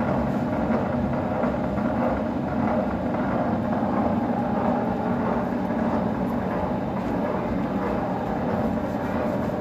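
A 12-foot heavy-duty lathe running steadily: an even mechanical hum with a couple of held low tones that do not change.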